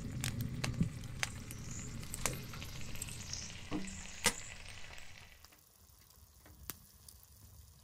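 Sausage slices and eggs frying in a cast-iron pan on a wood stove: a steady sizzle with scattered sharp pops, dropping to a faint hiss about five seconds in.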